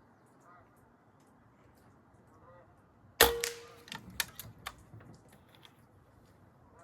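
A single moderated shot from a Benjamin Armada PCP air rifle about three seconds in, a sharp crack with a short ring after it, followed by a few light clicks.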